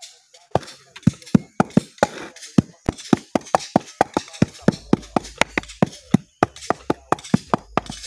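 Wooden tamper knocking on sand-cement mix in a hand-held concrete block mould, a rapid run of sharp knocks, about four or five a second, as the block is packed by hand.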